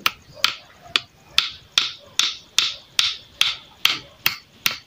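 Hammer driving a nail into a small wooden crosspiece on a stake: steady blows about two and a half a second, each with a short ring.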